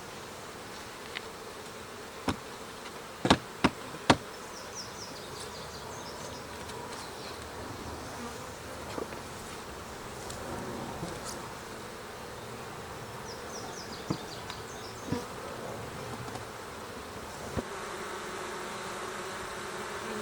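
Honey bees buzzing steadily around an open hive, the colony stressed and agitated by the inspection. Several sharp knocks break through, the loudest a quick cluster of three about three to four seconds in.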